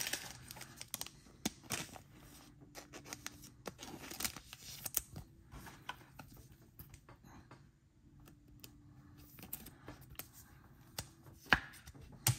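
2022 Select football trading cards being handled and sorted: scattered soft clicks and scrapes of glossy card stock sliding against card, with a few sharper taps.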